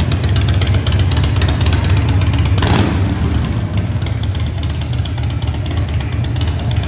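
Harley-Davidson 2004 Heritage Softail's V-twin engine running steadily at idle, with a short louder burst about two and a half seconds in.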